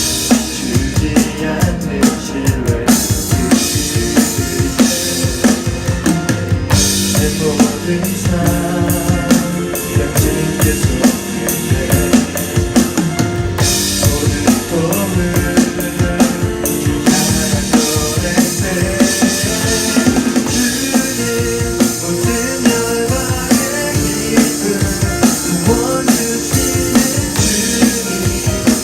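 Roland TD-4 electronic drum kit triggering sampled (VSTi) drum sounds, played in a steady groove with kick, snare, rimshots and cymbals over a backing track with bass notes. The cymbals drop out briefly a few times, at breaks and fills.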